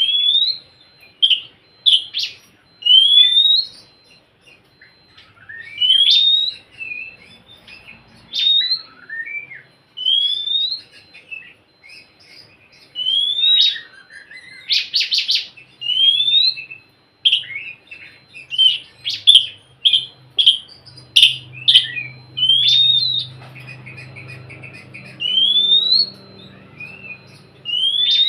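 Oriental magpie-robin (kacer) singing: a busy run of short, rising whistled phrases mixed with chattering notes, repeated every second or so, with a fast rattle about midway. A faint low hum comes in near the end.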